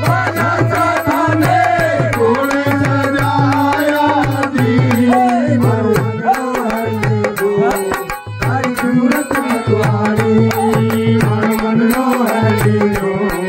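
Devotional Hindi bhajan music: a fast, steady drum rhythm under a gliding melodic line.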